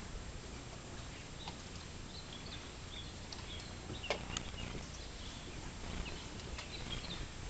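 Small birds chirping in short, scattered high calls over a steady low hum, with one sharp click about four seconds in.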